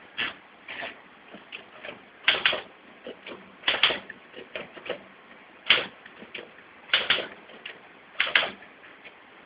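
Manual typewriter keys striking one at a time at an irregular, unhurried pace, often in quick pairs, with short pauses between.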